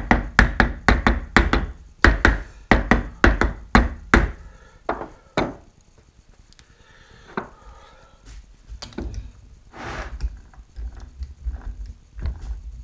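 A soft-faced mallet striking the body of a 10-inch three-jaw scroll chuck, about four quick blows a second for roughly four seconds, seating the chuck's back plate over its dowel pin during reassembly. Then two more blows and fainter knocks and clinks of metal parts being handled.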